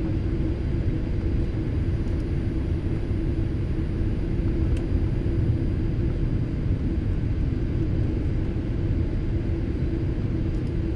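Airliner cabin noise during the landing approach: the steady low rumble of engines and airflow with a constant hum running through it.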